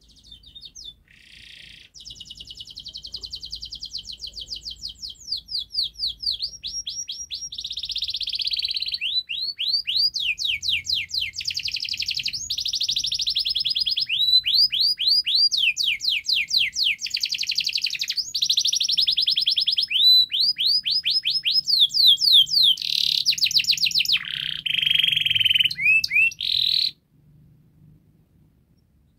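Domestic canary singing a long, near-continuous song of fast trills and repeated sweeping notes, changing from one rolling phrase to the next. After a brief opening note it runs unbroken, then stops suddenly near the end.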